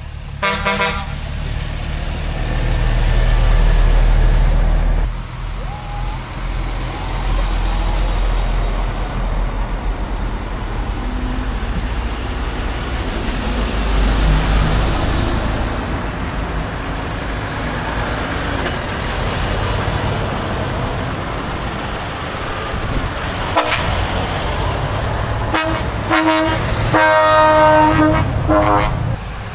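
Heavy trucks driving past one after another, their diesel engines running loud as each goes by. A horn sounds briefly near the start, and a longer horn blast in several tones sounds near the end.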